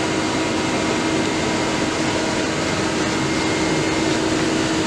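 Steady hum of a CNC turning centre running, with a constant low tone under an even machine noise.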